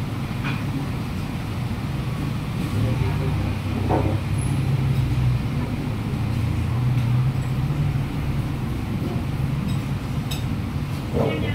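Low, steady rumble of street traffic, a vehicle engine swelling louder twice, with brief snatches of voices.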